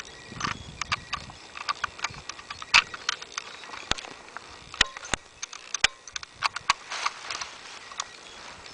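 A string of irregular sharp clicks and knocks, more than a dozen, with a low rumble early on.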